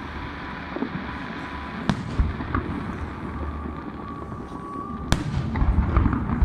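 Fireworks going off: a constant low rumble of bursts with sharp cracks about two and five seconds in, a faint steady whistle in the middle, and the bangs coming thicker and louder near the end.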